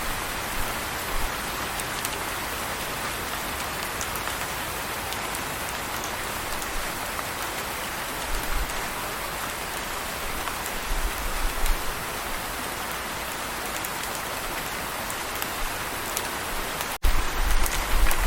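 Steady rain falling, an even hiss of drops. Just before the end the sound cuts out for an instant, and low rumbling surges grow louder after it.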